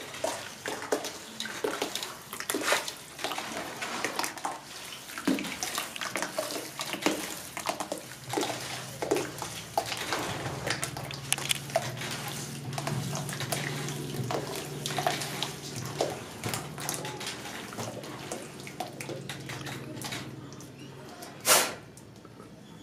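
Wet sloshing and dripping as a hand works cotton fuse threads through a bowl of black-powder slurry, in many irregular small splashes, with a sharp knock near the end.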